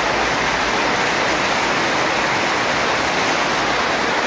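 Muddy river in flood rushing and churning in standing waves past a bridge pier, a steady loud rush of turbulent water.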